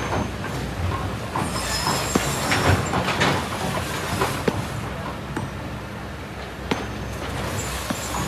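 Kobelco SK200 excavator's diesel engine running under steady load while stones and sand clank and rattle against the steel bucket and truck body, with a brief high metallic squeal about two seconds in.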